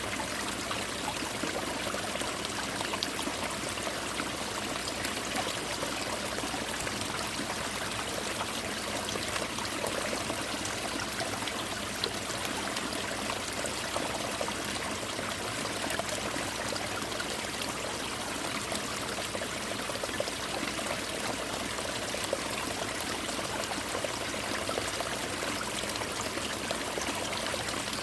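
Winter mountain stream pouring and splashing over ice-covered rocks, a steady rush of water that falls like rain. It does not change.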